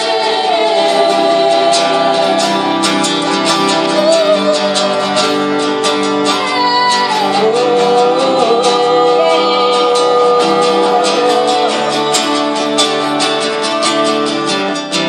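Live worship-band music: acoustic guitar strumming steadily under a gliding melody line, in an interlude between sung verses.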